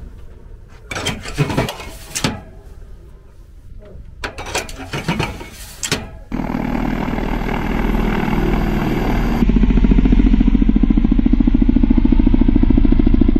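Sharp metal clanks and knocks as ground crew handle the Ka-52M's unguided-rocket pod. About six seconds in, they give way to the steady, rapid beat of the Ka-52M attack helicopter's coaxial rotors in flight, which grows louder about three seconds later.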